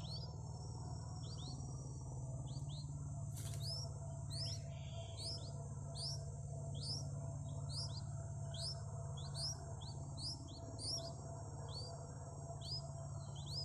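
Small birds chirping: short rising chirps repeated about twice a second, over a steady high whine and a low hum.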